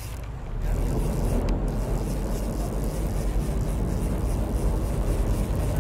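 Steady rumble of a sport-fishing boat under way, with wind and rushing water, getting louder about half a second in.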